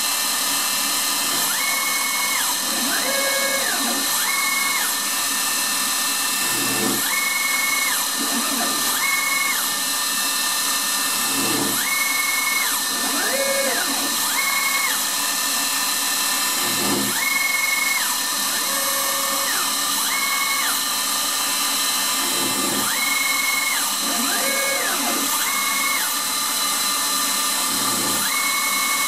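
CNC router spindle running an end mill through a cast-aluminium part, facing off its top surface with a steady cutting whine. Over it, the axis drives whine up in pitch, hold and drop back, repeating every few seconds as the machine makes pass after pass.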